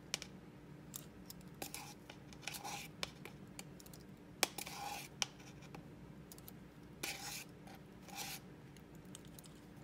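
Metal measuring spoon scooping baking powder from its can, with sharp clicks against the can and a few short scrapes.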